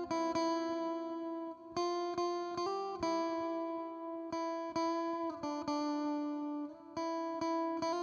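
ESP LTD M-200FM electric guitar, on its coil-split middle pickups, played through an Amplitube 4 Fender Twin Reverb amp simulation in a clean tone. It plays a slow single-note melody of plucked notes, each held and left ringing, with a new note every half second to a second and a half.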